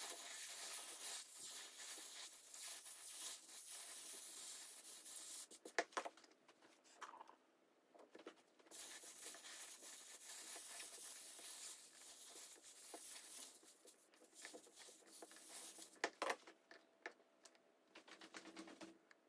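Hot steam iron pressed and rubbed over a water-soaked rag on a leather shoe's toe to steam out the creases: a faint hiss and scrape in two long stretches with a lull about five seconds in. A few light knocks near the end as the iron is set down and the shoe lifted.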